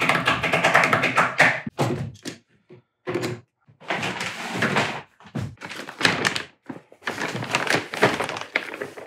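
A clear plastic bag crinkling and rustling in several separate bursts as it is handled and rummaged through. A short vocal sound comes first, in the opening second or two.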